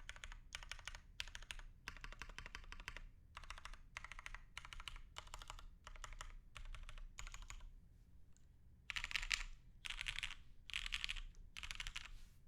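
Typing on a mechanical keyboard with Cherry MX Black linear switches and DCS-profile keycaps: runs of keystroke clacks in bursts, a short pause about eight seconds in, then louder, faster bursts near the end.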